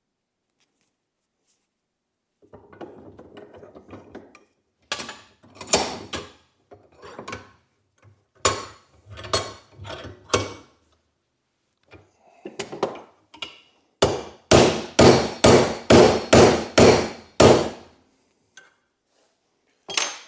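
Hammer blows on metal, knocking at a seized part in a Volvo 142 door hinge to drive it out. The first blows come singly and in small groups; near the end comes a quick run of about eight strikes, roughly two or three a second.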